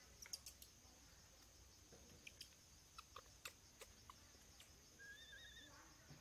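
Faint forest ambience: a steady high-pitched insect drone with scattered short chirps and clicks, and a brief warbling call about five seconds in.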